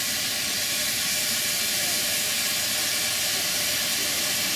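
Steady hiss of steam escaping from a live-steam model locomotive standing in steam.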